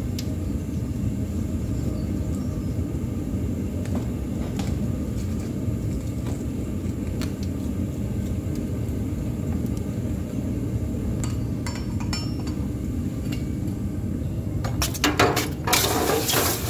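Sparse light clinks and taps of metal tongs against the aluminium casting as it is broken out of the sand mould, over a steady low rumble. About fifteen seconds in, a loud hissing sizzle as the still-hot aluminium casting is quenched in a tank of water.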